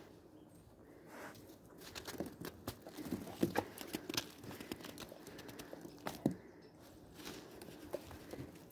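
Faint, irregular crunching and crackling of footsteps in fresh snow, with a few sharper clicks, the loudest a little past six seconds in.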